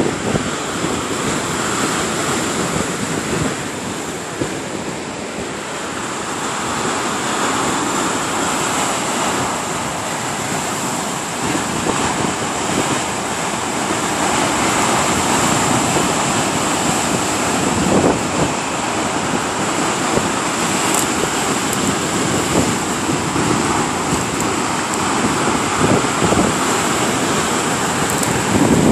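Lake Superior surf: waves breaking on the shore in a continuous rushing wash that swells and eases, with wind blowing on the microphone.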